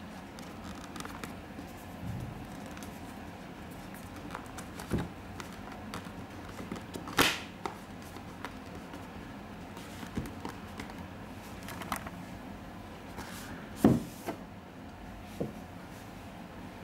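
Cardboard packaging being handled: an outer card sleeve slid off a headphone box, with light rubbing and scraping of card and small clicks, and two sharper knocks of cardboard, one about halfway through and a louder one some seconds later.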